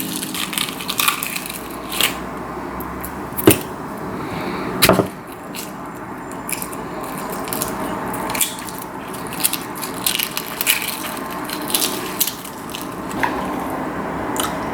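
Kitchen work noises over a steady hiss: scattered clicks, taps and scrapes of things being handled, with two sharper knocks about three and a half and five seconds in.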